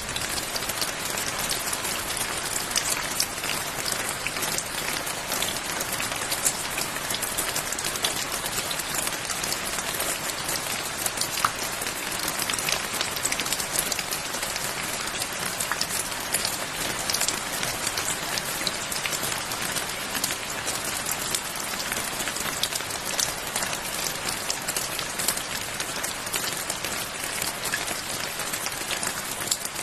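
Steady rain falling, a dense even hiss dotted with many sharp individual drop impacts.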